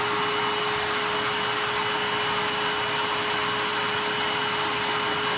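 Hoover WindTunnel MAX bagged upright vacuum cleaner running steadily at full speed, just after switching on, with a constant whine over the rush of air.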